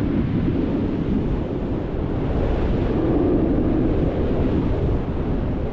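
Airflow buffeting the microphone of a paraglider's camera in flight: a steady, low rushing wind noise during the final glide in to land.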